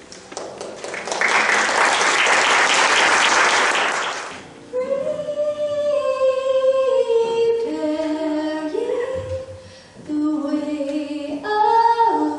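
Congregation applauding for about four seconds, then voices begin singing a slow melody of held notes.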